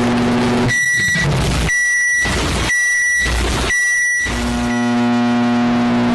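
Microwave oven humming steadily, then four high beeps about a second apart while the hum stops, after which the hum starts again.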